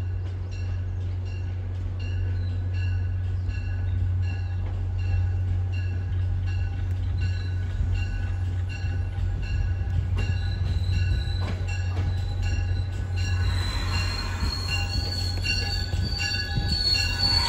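MBTA commuter train approaching and pulling into the station, cab car leading and F40PH-3C diesel pushing at the rear. A bell rings at an even pace, and from about two-thirds of the way through the train grows louder with a high wheel squeal as it arrives.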